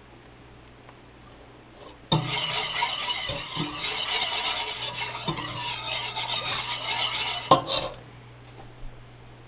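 Wire whisk stirring flour-thickened broth in a stainless steel pot: a brisk scraping and rattling of the wires against the pan for about five seconds, starting about two seconds in and ending with a clink as the whisk is laid against the rim.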